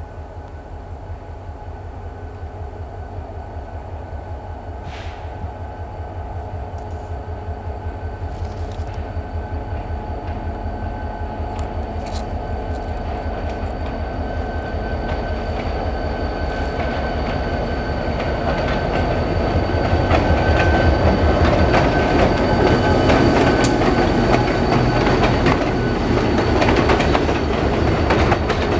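Passenger train approaching and crossing a bridge overhead: a low rhythmic locomotive throb and a rumble grow steadily louder, and in the last seconds the coaches rumble past over the rails.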